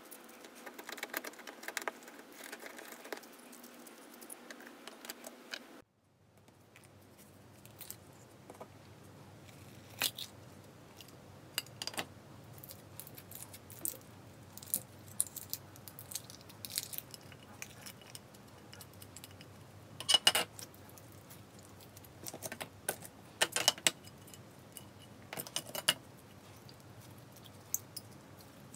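Plastic beads inside a clear, jiggly slime clicking and rattling against each other as the slime is squeezed and stretched by hand. The sharp clicks come in scattered clusters, loudest about twenty seconds in.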